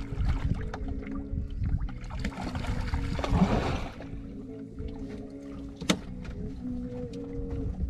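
Wind and water noise on a small open fishing boat, a low rumble with steady low tones under it. A louder rush of noise runs through the middle, and there is one sharp click about six seconds in.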